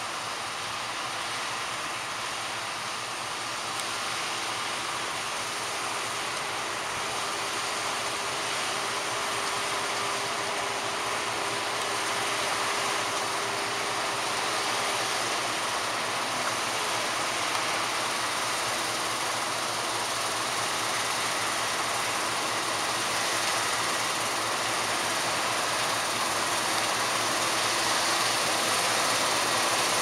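Claas Lexion 660 combine harvester threshing barley and unloading on the move, with a John Deere 6195R tractor running alongside: a steady mechanical drone and rush that grows gradually louder.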